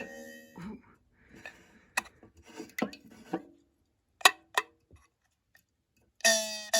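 A few scattered light clicks and taps from an aluminium drink can that would not open, between a chiming piece of music that stops about half a second in and starts again near the end.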